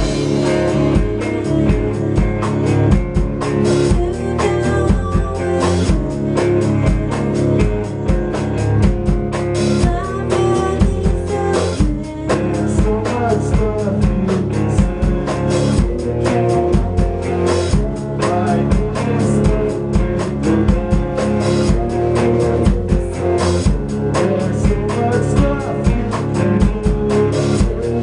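A rock band plays live in a rehearsal room: an electric guitar through a stack amplifier, with a full drum kit keeping a steady beat of hits throughout.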